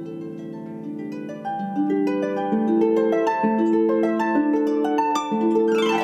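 Celtic harp played solo: a melody of plucked notes that ring on over one another, louder from about two seconds in, with a quick downward sweep across the strings near the end.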